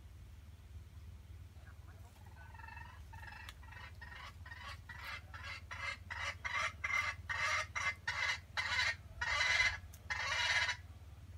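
Wild junglefowl cackling: a run of short clucks that start faintly, speed up and grow louder, ending in two long drawn-out calls.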